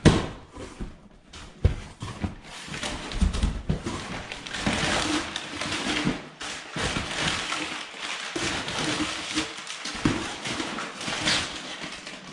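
Large cardboard shipping box being opened by hand: flaps scraping and folding back, and brown packing paper rustling and crinkling as it is pulled out, with a sharp knock at the very start.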